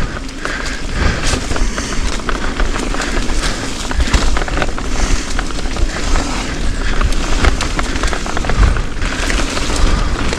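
Wind buffeting an action camera's microphone in a steady low rumble, with constant rattling and crunching knocks from moving fast over a rough trail.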